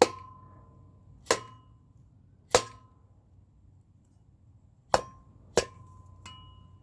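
Six light mallet taps on the metal bearing end cap of a Whirlpool refrigerator fan motor, seating the cap back on after the bearing wick has been oiled. Each tap is a sharp knock, several leaving a brief ringing tone; the last is fainter.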